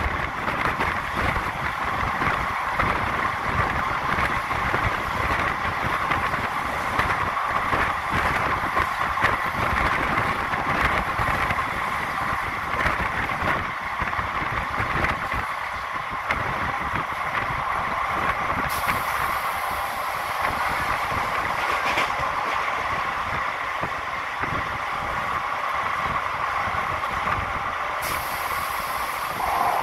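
A passenger train running at speed, heard from an open door or window of one of its coaches: a steady rolling noise of the wheels on the track with frequent knocks and rattles. A hiss comes in about two-thirds of the way through and again near the end.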